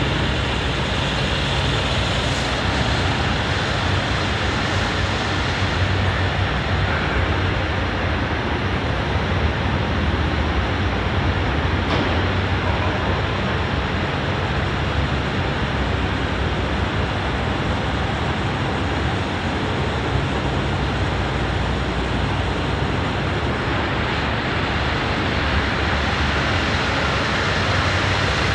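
Scania R480 hook-lift truck's six-cylinder diesel engine idling steadily.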